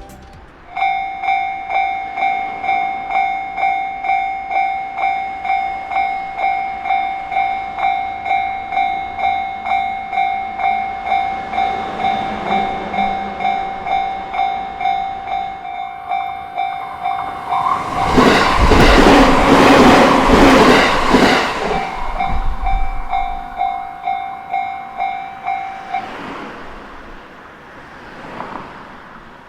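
Japanese level-crossing alarm ringing its electronic bell in a steady repeating rhythm, while a JR Sobu Line train passes through the crossing about 17 to 22 seconds in, the loudest part. The alarm stops a few seconds after the train has gone.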